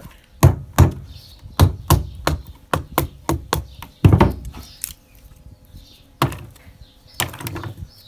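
Wooden mallet knocking a wooden wedge into a split stick, forcing the split open. About a dozen quick, sharp wood-on-wood knocks in the first four seconds, then three more spaced out near the end.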